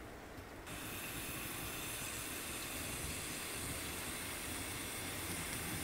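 AeroPress coffee maker being pressed down near the end of its stroke, air hissing steadily through the coffee grounds and paper filter. The hiss starts abruptly just under a second in and holds steady.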